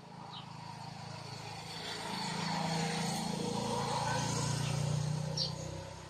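A motor vehicle passing on a nearby road: its engine hum grows louder over a couple of seconds, holds, then fades near the end.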